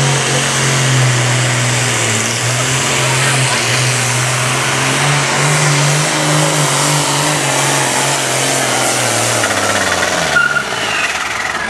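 A Case super farm pulling tractor's turbocharged diesel engine running flat out under load as it drags the weight sled, loud, with a wavering note and a strong hiss. Near the end the engine note falls in pitch as the pull winds down.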